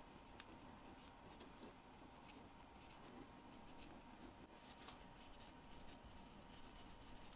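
Faint, light scraping and small ticks of fine watchmaking hand tools working on watch hands, scattered irregularly, over a faint steady hum.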